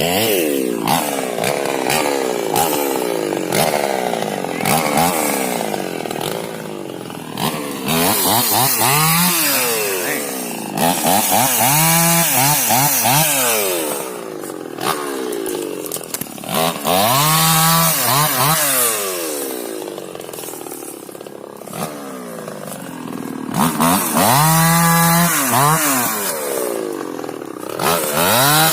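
Chainsaw running and cutting wood, its engine revved up and let back down again and again, so the pitch climbs and falls every few seconds.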